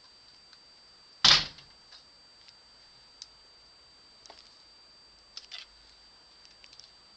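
A single loud thump about a second in, then a few faint clicks, over a faint steady high-pitched whine.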